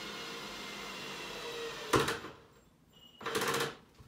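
A steady hiss that stops abruptly with one sharp knock about halfway through, then a short burst of noise about a second later.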